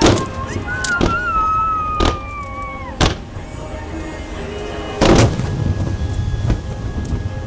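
Fireworks shells bursting: five loud booms, the first four about a second apart and the last a couple of seconds later, over a low rumble. A high whistle glides slowly down in pitch for about two seconds and then drops away sharply.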